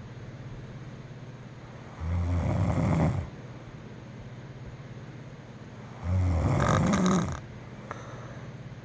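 A sleeping woman snoring: two loud, buzzy snores about four seconds apart, each lasting a little over a second.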